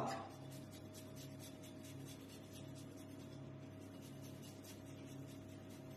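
Fresh ginger being grated on a fine handheld rasp grater: a run of faint, quick scraping strokes, several a second, over a low steady hum.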